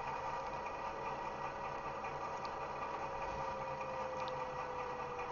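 Recorded V200 diesel engine sound idling steadily, played by a LokSound model-locomotive sound decoder through its small loudspeaker. A thin, faint squeal tone sits over it, gently rising and then falling: the decoder's curve (flange) squeal sound.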